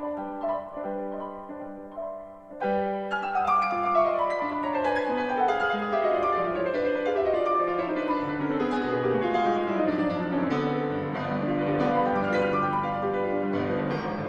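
Background piano music: slow chords at first, then from about two and a half seconds in, louder flowing runs of notes stepping down in pitch.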